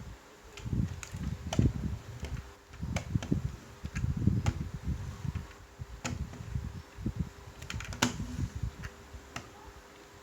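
Toy cars being handled: irregular sharp clicks and taps with low, uneven rumbling and knocking from the handling.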